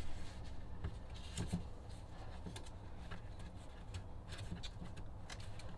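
Faint rubbing and a few light clicks as a glued cedar ceiling plank is held and pressed by hand against the roof framing.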